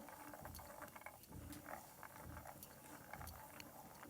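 Faint crackling of peanuts roasting in oil in a pan, with scattered small ticks.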